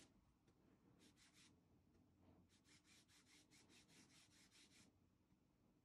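Faint strokes of a flat paintbrush brushing paint onto a fabric apron, quick scratchy back-and-forth strokes about four a second, in a short run about a second in and a longer run from midway to near the end.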